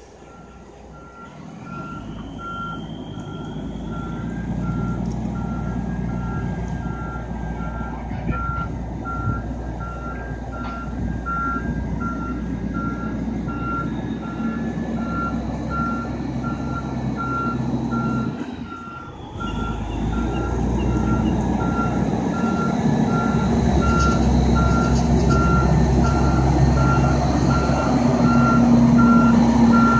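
Semi-trailer truck reversing: its reverse alarm beeps in a steady, regular on-off pattern over the rumble of the diesel engine. The engine grows louder as the truck backs closer, easing off briefly about two thirds of the way through.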